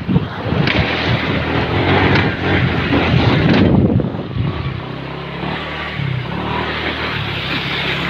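Motorcycle engine running under way, with wind buffeting the microphone; the engine's steady hum comes through more plainly in the second half.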